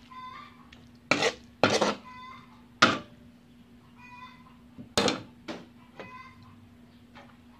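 A spatula scraping and knocking against a wok as stir-fried cabbage is turned: about five sharp strokes, unevenly spaced. Between them an animal gives short, high calls several times in the background.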